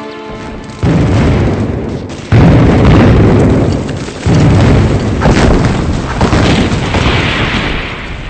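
A string of explosions: three heavy blasts, the first under a second in and the others about a second and a half apart, each trailing off in a long rumble, followed by a few smaller blasts.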